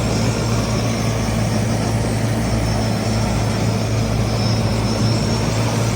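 Engine of harvest machinery running steadily at constant speed, a strong low hum under mechanical clatter.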